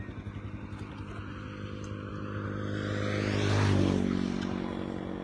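Small boat engine running with a steady, pulsing beat, growing louder to a peak about three and a half seconds in, then easing off.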